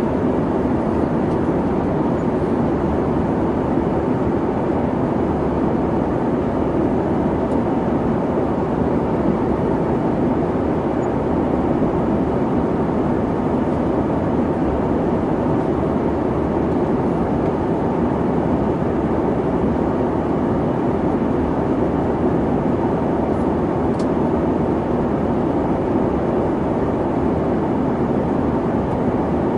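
Boeing 737 airliner in flight: a steady, even roar of jet engine and airflow noise, strongest in the low-mid range, with no change in pitch or level.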